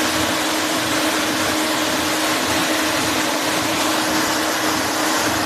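Eight-impeller 3 HP paddle wheel shrimp aerator running, its paddles churning and splashing the pond water in a steady rush of spray, with a steady hum underneath.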